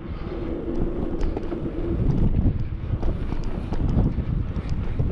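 Wind buffeting the microphone over the steady rumble of mountain bike tyres rolling on a rough concrete track, with scattered light clicks.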